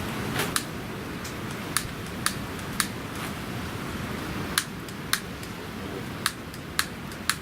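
Strong wind buffeting the microphone with a steady rumble, broken by about ten sharp clicks at uneven intervals.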